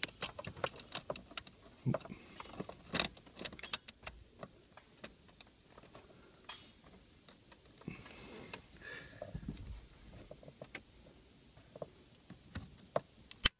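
Irregular small plastic clicks and rattles of a zip tie being wrapped around and cinched on the ignition switch's blue wiring connector, with a quick cluster of louder clicks about three seconds in.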